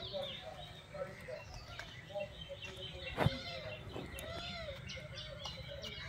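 Birds chirping and calling in the background, many short overlapping calls, with a single sharp knock a little past three seconds in.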